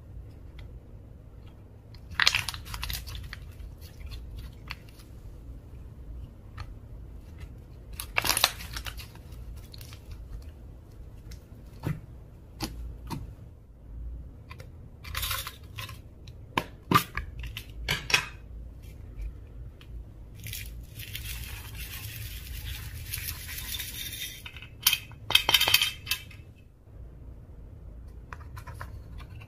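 Hands kneading and stretching a large mass of mixed slime, making scattered sticky pops and crackles. A longer rustling stretch comes about two-thirds of the way through.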